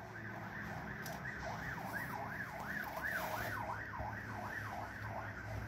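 Police car siren wailing up and down quickly, about three rises and falls a second, fading out near the end.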